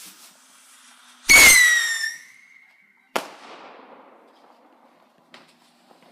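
A whistling firework: a sudden launch with a shrill whistle that dips slightly in pitch about a second in, then a single sharp bang about three seconds in whose sound trails away.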